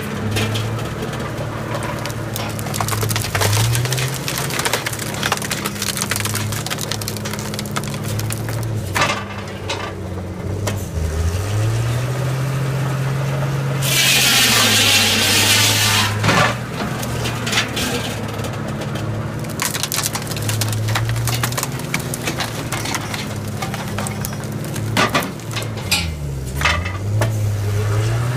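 Homemade firewood processor at work. Its 1960 Ford truck gas engine, driving the hydraulic pump, runs steadily and twice bogs down under load and climbs back up. Wood cracks, knocks and clatters as logs are split, with a harsh rushing sound lasting about two seconds midway.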